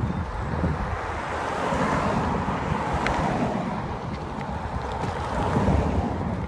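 Wind buffeting the microphone of a camera on a moving bicycle: a steady low rumble with a rushing hiss that swells about two seconds in and again near the end.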